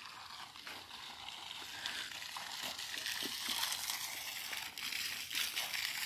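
Faint rustling and crunching of footsteps on grass and gravel, made up of many small ticks and growing louder toward the end.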